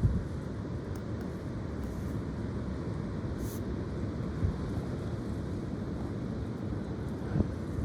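Strong gusty wind buffeting the microphone: a steady low rumble, with a couple of short thumps from the gusts, one at the very start and one near the end.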